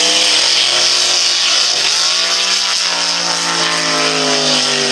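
Drag car's engine held at high revs through a burnout, its pitch dipping briefly about two seconds in, over the steady hiss of the spinning rear tyres.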